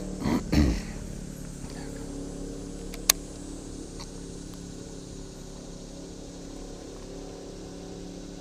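Steady electric hum of a bass boat's trolling motor, with two short low thumps at the start and a single sharp click about three seconds in.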